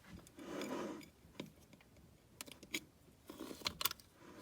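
Small handling noises: a brief soft rustle, then a scatter of light clicks and taps.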